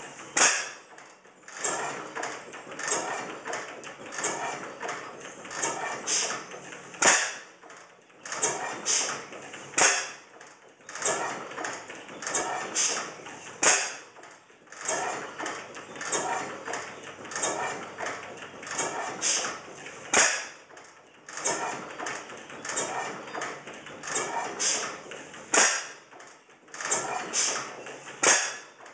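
Circa-1896 6 HP Springfield overhead-cam gas engine running: a constant clatter of clicking valve gear and linkage, with a much louder bang every three to four seconds.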